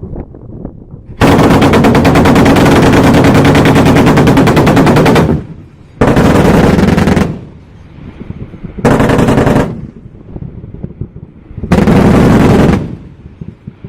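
Twin 35 mm autocannons of a Gepard (Cheetah) 1A2 anti-aircraft tank firing in four bursts of rapid fire. The first burst runs about four seconds, and three shorter bursts of one to one and a half seconds follow with pauses between.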